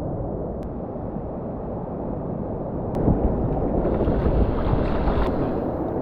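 Wind rumbling on the microphone over the wash of shallow surf, the water noise growing stronger about halfway through, with a few faint clicks.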